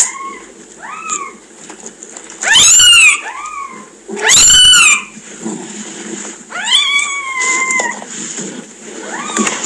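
Day-old kittens mewing: about seven short, high, rising-then-falling cries, two of them much louder in the middle and a longer drawn-out one later.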